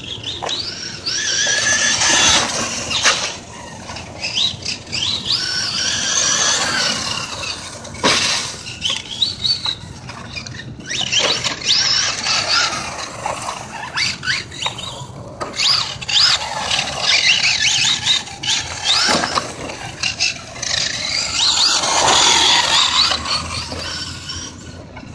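Team Associated ProRally electric RC rally car driving hard, its motor whining up and down in pitch as it repeatedly speeds up and slows, over a steady hiss, with a few sharp knocks.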